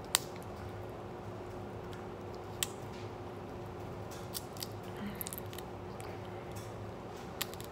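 Crab-leg shells cracking and snapping as they are broken open by hand: a sharp crack just after the start, another about two and a half seconds in, and a few smaller clicks later. A low steady hum lies underneath.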